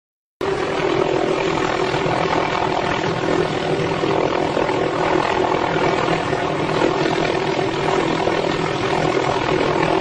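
Helicopter hovering close by, its rotor and engine making a loud, steady drone that cuts in abruptly just after the start.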